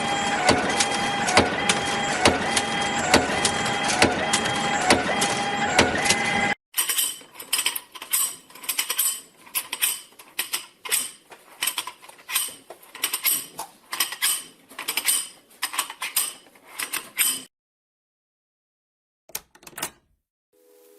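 Forging-shop machinery: a steady mechanical din with a regular knock about once a second, then a run of sharp metal strikes with ringing, about two a second. The strikes stop about two-thirds through, followed by one brief burst of noise.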